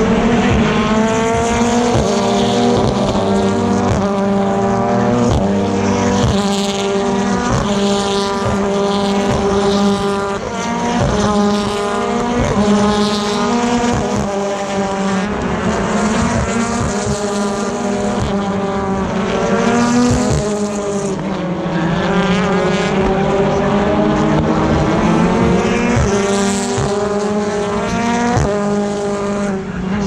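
A stream of BTCC touring cars accelerating past one after another, their turbocharged four-cylinder race engines rising in pitch and dropping at each upshift. The runs overlap over a steady drone from the rest of the field.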